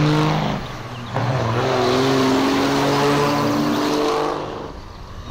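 Loaded diesel semi-trucks accelerating hard from a drag-race launch, engines running under heavy load. The engine note drops off about half a second in and picks up again about a second in, as at a gear change, then climbs slowly and fades as the trucks pass.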